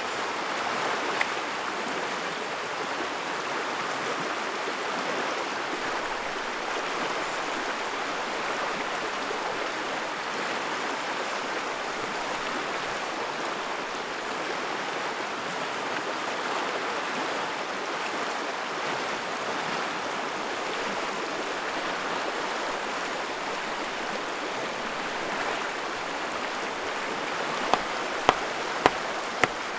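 Shallow river rushing over rapids in a steady wash. Near the end, sharp knocks come about twice a second as a hatchet hammers a wooden stake.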